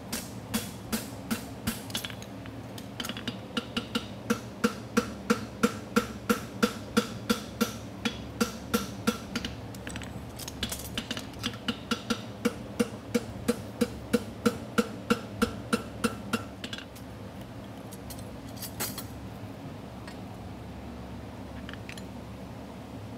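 A farrier's hammer striking a red-hot steel horseshoe on the anvil, about three blows a second, the anvil ringing with each blow. The hammering stops about sixteen seconds in, with one more blow a couple of seconds later. A steady buzz from a Portacool evaporative cooler fan runs underneath.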